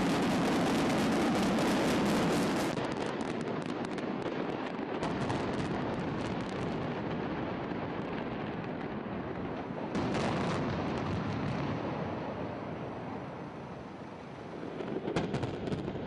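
Controlled demolition of a long road viaduct: a rapid chain of explosive charges going off, a dense crackle of many small blasts over a rumble, loudest for the first few seconds and then easing. A fresh burst comes about ten seconds in and another near the end.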